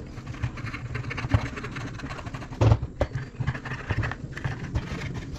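A thin metal tool scraping and picking at caked dust and oil grime inside the housing of a Hilti TE 7-C rotary hammer, giving irregular scratches and clicks, with a heavier knock about halfway through as the housing is handled.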